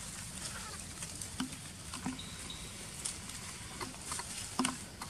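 Macaques feeding and moving about in leaf litter: scattered short clicks and rustles over a steady low background rumble, with a brief thin high chirp a little after two seconds in.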